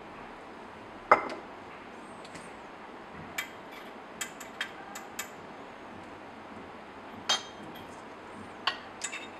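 Laboratory glassware clinking: a glass funnel is lifted out of a round-bottom flask's ground-glass side neck and a glass stopper fitted in its place. A sharp clink about a second in, a run of lighter taps a few seconds later, and a few more clinks near the end.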